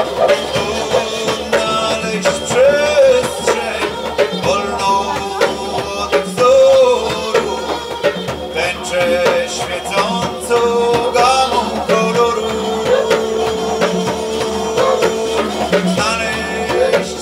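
Live band music: a didgeridoo drone under hand-drum beats, with a wavering melody line on top that holds one long note about twelve seconds in.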